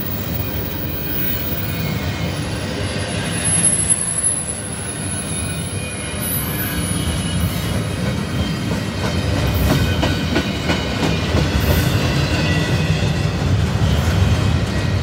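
Intermodal freight train's double-stack well cars rolling past close by: a steady rumble of steel wheels on rail, with sharp clicks as the wheels cross rail joints and thin, high-pitched wheel squeal.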